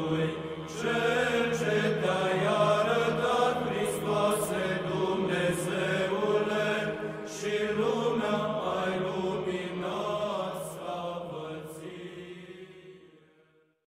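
Chanted singing over a steady, held low drone note, fading out over the last couple of seconds.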